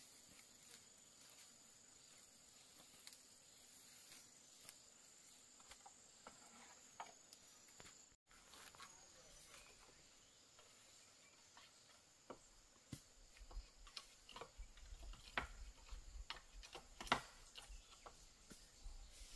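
Near silence: a faint, steady, high-pitched insect drone, with scattered small clicks and rustles that grow more frequent and are joined by a low rumble in the second half.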